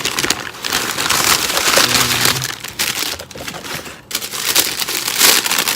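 Loud crinkling and rustling of food packaging handled close to the microphone: a dense, crackly scrunching with a short lull about four seconds in.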